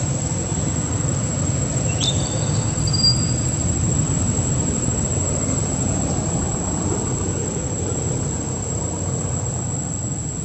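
Steady outdoor ambience: a low rumble with a constant high-pitched insect drone over it, and a short rising chirp about two seconds in.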